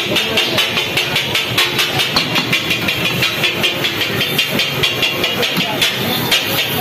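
Metal spatulas clattering in a fast, even rhythm on a hot steel tawa griddle, about four to five strikes a second, over steady market noise.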